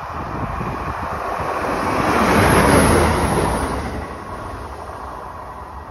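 Diesel passenger train passing close by at speed. Its rumble and wheel noise build to a peak about halfway through and then fade as it goes away, with a faint high whine that drops in pitch as it passes.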